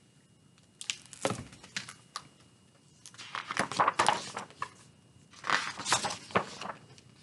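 Hardcover picture book being opened and its pages turned by hand: the stiff cover and paper pages rustle in three bursts, with a few sharp taps from the board cover.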